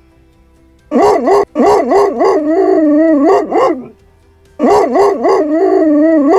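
A dog barking in a quick string of rising-and-falling barks that draw out into a few longer, wavering howl-like cries. The same run starts about a second in and plays again near the end.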